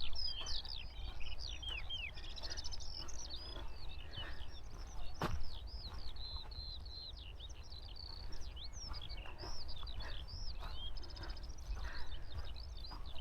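Skylark singing a continuous, rapid stream of chirps and warbling trills over a low wind rumble, with one short knock about five seconds in.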